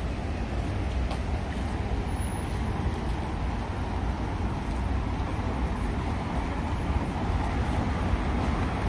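Steady city road traffic: a low, continuous rumble of cars driving past on the road.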